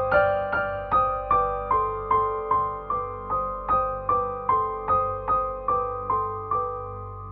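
Slow, gentle solo piano background music: single notes struck at an even pace, about two to three a second, each fading before the next.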